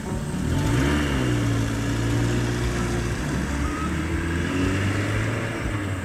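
Tractor engine running as it drives along, its revs rising about a second in and then holding steady.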